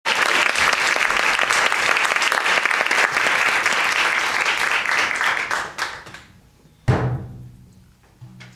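Audience applauding, dying away about six seconds in. About a second later a single low drum beat is struck and rings on.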